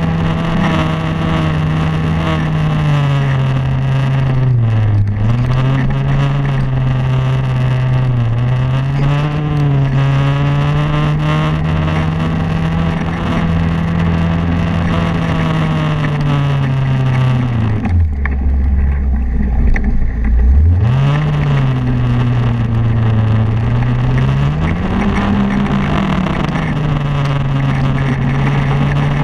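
Snowmobile engine running continuously, its pitch rising and falling as the throttle is worked. About two-thirds of the way through it drops to a low, dull note for a few seconds, then revs back up.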